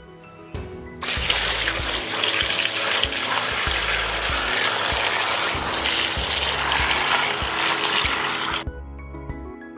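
A stream of water splashing onto bell peppers in an enamel basin, washing them. It starts about a second in and cuts off sharply near the end, over soft background music.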